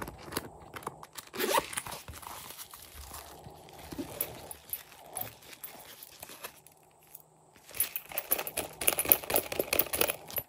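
Hands handling a holographic vinyl shooting-star pouch: crinkling, rubbing and light taps of the stiff plastic. Near the end comes a dense run of quick crackles as the pouch is pulled open.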